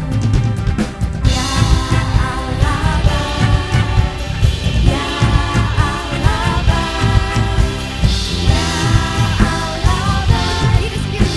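Live worship band playing: drum kit, bass, electric guitars and keys, with singers' voices over the music.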